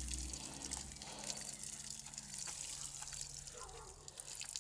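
Faint trickle and patter of water pouring from a watering can's spout onto soil.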